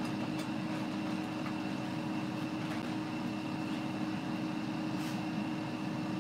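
Steady hum of an appliance fan, with a faint high whine held over it and a few faint light clicks.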